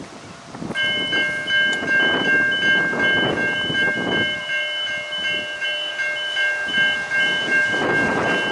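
Railway level crossing warning bell starts ringing a little under a second in, a steady electronic ringing with a fast pulsing upper note, over gusty wind noise. Near the end a louder rushing noise rises as a vehicle comes across the crossing.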